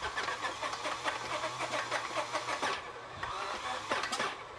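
Radial aircraft engine being cranked over for a start, its propeller turning slowly, with a fast run of rhythmic pulses. The pulses dip for about a second past the midpoint, then a few sharp clicks and the pulsing picks up again.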